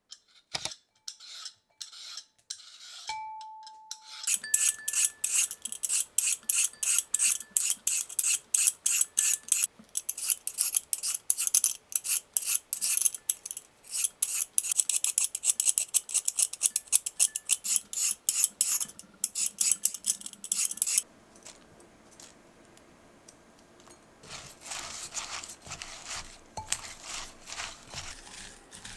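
A vegetable peeler shaves a raw carrot into thin ribbons, making a fast run of crisp scraping strokes that stops about three quarters of the way through. Near the end there is softer rustling as the carrot ribbons are mixed in a glass bowl.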